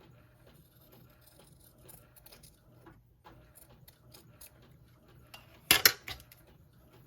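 Fabric scissors cutting cotton fabric in faint, scattered snips, then a sharp metallic clatter of two or three quick clicks near the end.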